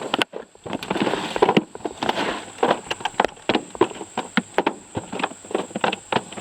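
A freshly caught bass flopping and thrashing about, making rapid, irregular knocks and slaps.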